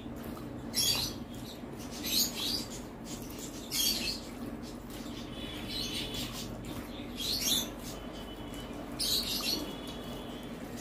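Close-miked eating sounds: wet chewing and fingers squishing rice with potato-poppy-seed posto on the plates, coming in short crackly bursts every second or two over a low steady hum.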